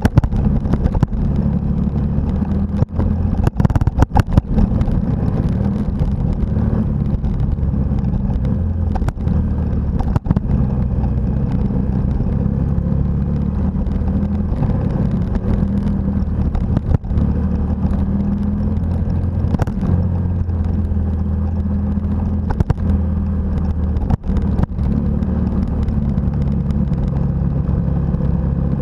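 Motorcycle engine running on a gravel road, its low note rising and falling a little with the throttle. Sharp knocks and clatter from the rough surface come through now and then, a cluster of them about four seconds in.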